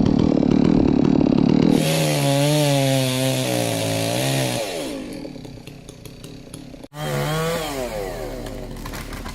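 Two-stroke chainsaw running at high revs, its pitch wavering as it works and then dropping away as the throttle is released. It comes in abruptly about two seconds in, and again after a sudden cut near the end, falling in pitch each time.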